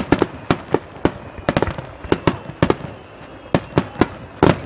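Barrage of aerial firework shells bursting in rapid succession: sharp bangs, irregularly spaced and several a second at times, with a short lull about three seconds in.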